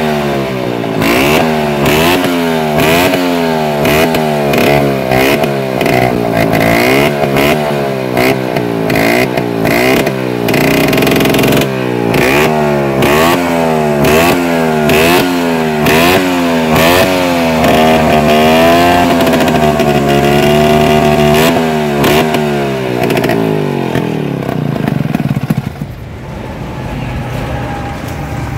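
Vespa scooter's two-stroke engine being revved in quick throttle blips, its pitch rising and falling over and over with sharp crackling pops. Later the revs swell more slowly, and near the end it drops back to a lower, quieter running.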